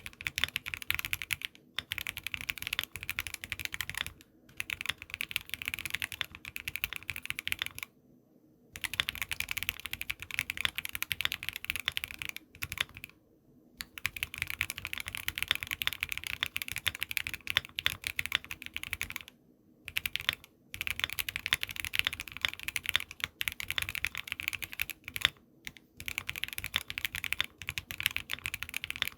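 Fast typing on a mechanical keyboard with stock Everglide V3 Water King switches in a Voice65% case with a polycarbonate plate, keys clacking in quick runs with a few short pauses.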